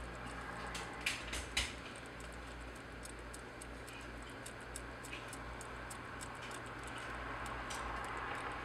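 Nursing kittens suckling and shifting against their mother: faint scattered clicks and smacks, with a pair of louder clicks about a second in, over a steady low hum.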